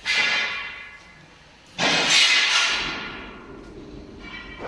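Steel wire straightening and cutting machine at work: two loud, sharp metallic clangs, one at the start and one about two seconds in, each ringing out for a second or more, then a fainter clang near the end.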